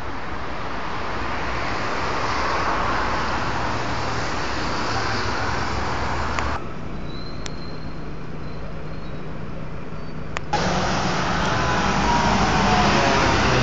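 City street traffic noise, cars passing on the road. The noise drops abruptly about six and a half seconds in and comes back about four seconds later, and near the end a passing vehicle's engine rises in pitch as it speeds up.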